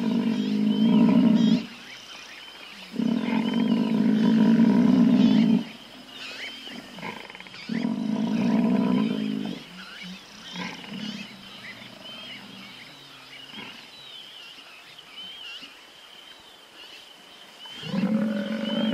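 Loud, drawn-out calls from a large wild animal, each about two seconds long, four times, with fainter calls between. High chirps run underneath throughout.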